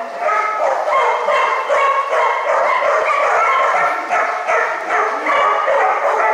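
Dogs yipping and barking without let-up, several high-pitched calls overlapping one another.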